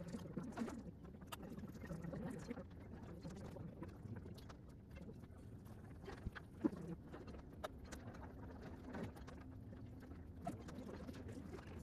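Quiet room tone with faint scattered taps and clicks, as of a stylus and keys on a tablet and laptop.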